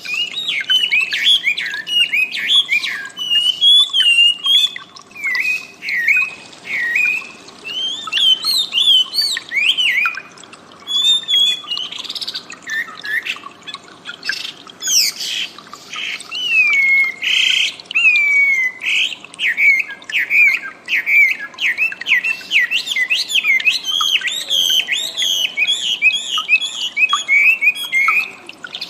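Wambi bird singing: a fast, continuous run of varied chirping and whistled notes that slide up and down, broken by a few short harsh squawky calls.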